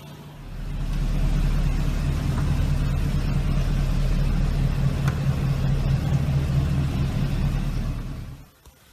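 Porsche Panamera Turbo's twin-turbo V8 running steadily, a deep exhaust rumble that swells about half a second in, holds an even pitch without revving, and cuts off sharply near the end.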